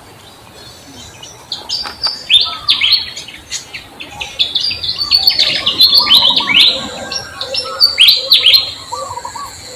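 Birds chirping: a rapid, busy run of short, high chirps, each sliding quickly down in pitch, starting about a second and a half in and thinning out near the end, with softer, lower repeated notes beneath.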